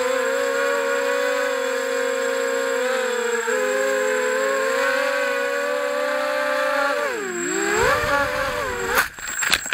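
FPV quadcopter's brushless motors whining steadily, heard from the onboard camera; the pitch drops and climbs again about seven seconds in. Near the end come a few sharp knocks as the quad crashes into a bush.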